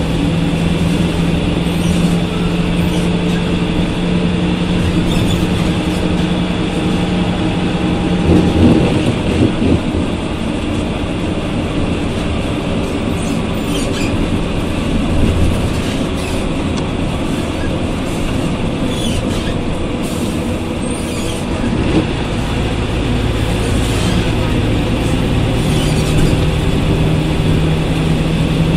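Ikarus 280 articulated bus running, with its Rába D10 diesel engine and ZF 4HP 500 automatic gearbox. A steady hum for the first eight seconds gives way, after a brief louder moment, to a changed engine note, with a low swell about 22 seconds in. The steady hum returns near the end, and scattered clicks and rattles run throughout.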